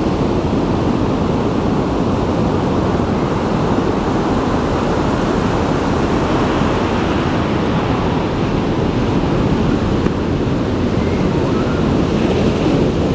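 Steady rush of ocean waves breaking into whitewater, with a low wind rumble on the microphone.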